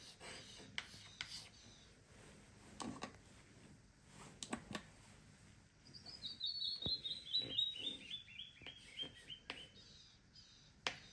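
Bird song played back from a recording: a quick series of about a dozen short, clear notes that fall steadily in pitch over about three seconds, starting around the middle. Scattered soft clicks and taps come before and after it.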